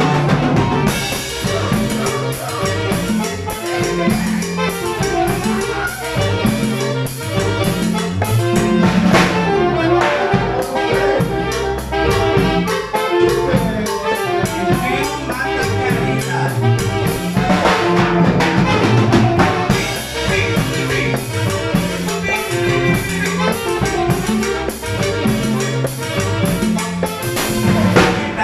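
Live band playing an instrumental passage of a tropical dance song: electric bass line, drum kit and congas keeping a steady beat, with a brass-like lead melody on top.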